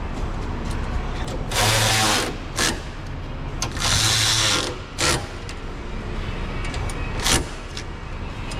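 A handheld power driver runs in two short bursts of under a second each, driving fasteners, with a few sharp clicks and knocks of parts and tools between them.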